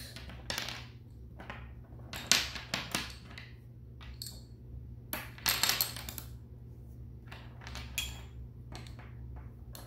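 Plastic magnetic building sticks and steel balls clicking and clattering as they are handled, pulled apart and set down on a wooden table, in several short irregular clusters.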